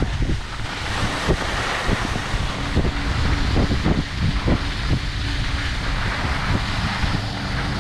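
Wind rushing over the microphone of a camera carried by a moving skier, over the steady hiss of skis sliding on snow, with irregular short scrapes and knocks.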